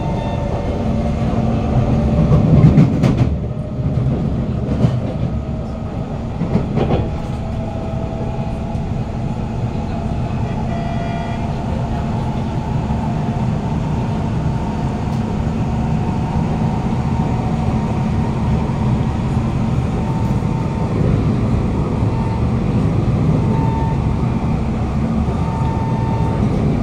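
Cabin interior of a Kawasaki Heavy Industries C151 metro train running at speed: a steady rumble of wheels on rail with a continuous motor hum and faint higher whining tones. The rumble swells about two to three seconds in, and a few sharp knocks come in the first seven seconds.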